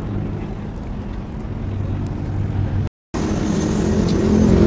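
Road traffic: vehicle engines running with a steady low hum. The sound cuts out briefly about three seconds in and comes back louder, swelling toward the end as a vehicle comes closer.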